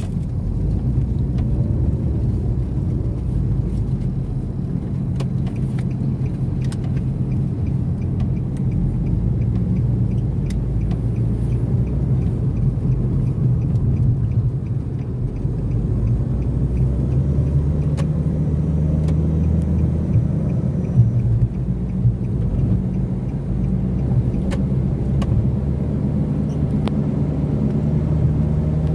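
Car driving, heard from inside the cabin: a steady low rumble of engine and road noise, with a few faint clicks.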